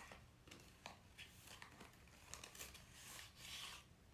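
Near silence, with a few faint rustles and crinkles of small packaging being handled, the longest near the end.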